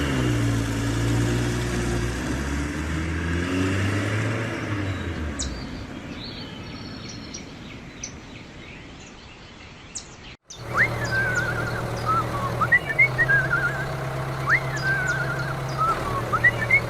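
An engine revs and runs with its pitch rising and falling, fading out over the first five seconds or so. After a sudden cut, birds chirp repeatedly over a steady low hum.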